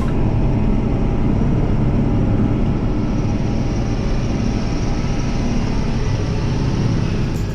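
Tractor engine running steadily under load, a low even drone with a constant pitch.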